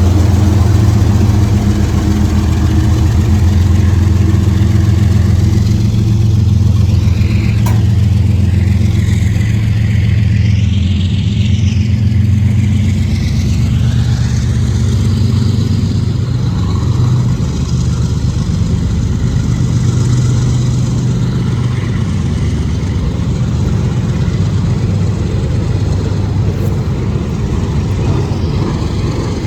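Freight train's diesel locomotive running as the train passes: a loud, steady low engine drone that eases after about halfway, with a wavering high squeal partway through.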